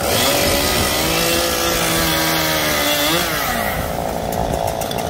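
Gasoline chainsaw running at high revs, cutting into the trunk of a storm-felled tree. Its pitch holds steady, then swings up and back down a little after three seconds in.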